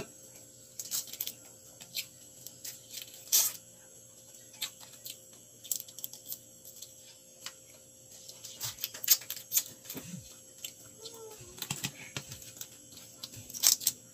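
Cooked crab being cracked and picked apart by hand, with irregular shell clicks and crunches and chewing between them. One louder crack comes about three seconds in and another near the end.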